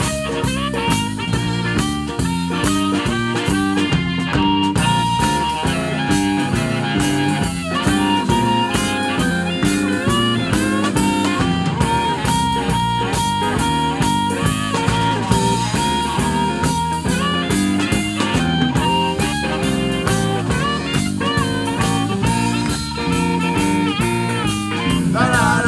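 Live blues band playing an instrumental break: electric guitar, electric bass and drum kit, with a harmonica played cupped against a handheld microphone. Held melody notes waver and bend near the end.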